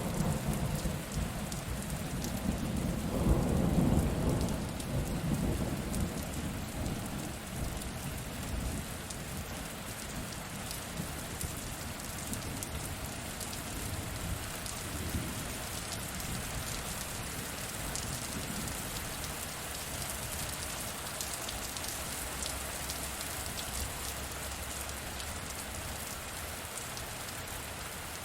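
Steady rain falling, with a deep roll of thunder that swells to its loudest about three to four seconds in and dies away over the next several seconds; fainter low rumbles follow later.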